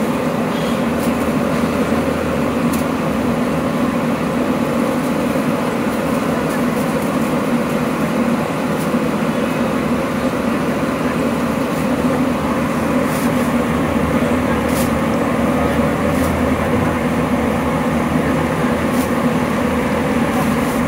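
Batata vadas deep-frying in a large kadai of hot oil: a steady, loud bubbling and sizzling with a constant low rumble underneath.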